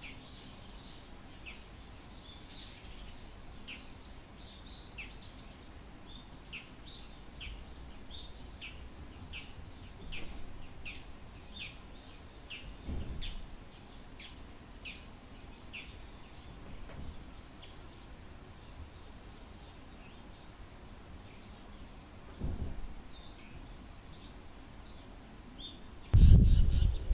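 Bull-headed shrike giving its autumn high-pitched territorial call, a long series of sharp repeated notes about two a second that thins out in the second half. A few soft low thumps, and a loud low rumble starts just before the end.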